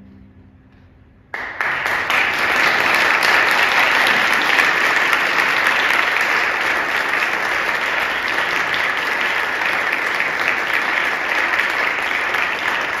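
The choir's last chord fading out, then about a second in the audience breaks into applause, clapping steadily and loudly.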